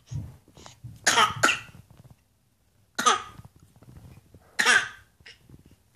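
Short coughs, four in all: two close together about a second in, another at about three seconds and a last one near five seconds.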